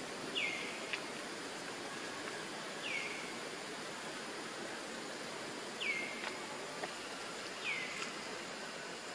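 Outdoor ambience with a steady hiss, over which a bird repeats a short, sharply falling call four times, a couple of seconds apart.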